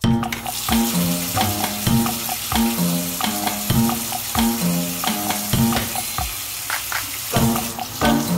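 Background music with a steady beat and a repeating two-note bass line, over a steady hiss.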